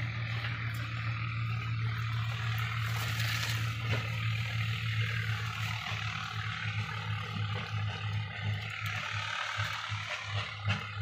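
Swaraj 855 tractor's three-cylinder diesel engine running at a steady speed, a low even drone. From about halfway through, the drone starts to pulse unevenly.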